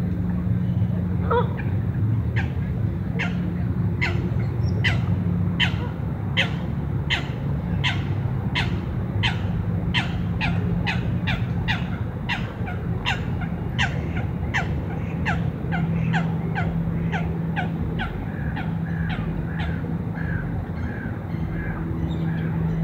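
A bird calling over and over: a short falling call about twice a second, keeping up a steady rhythm for most of the time and growing weaker near the end, over a steady low hum.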